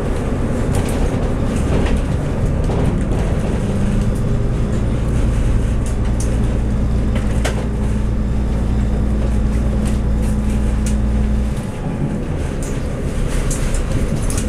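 Running noise heard inside a Taiwan Railway Tze-Chiang diesel multiple unit (DMU2900/3000 type) under way, with scattered clicks from the track. A steady low engine drone comes in after a couple of seconds and drops away suddenly about three-quarters of the way through.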